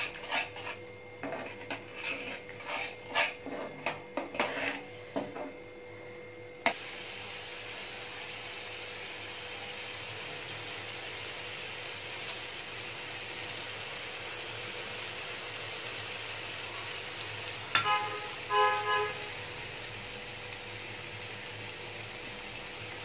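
A metal spatula scrapes and stirs a thick onion-tomato masala paste in a frying pan in short, irregular strokes for about six seconds. It then gives way to a steady sizzle of the masala frying in oil, the roasting stage where the oil separates at the sides.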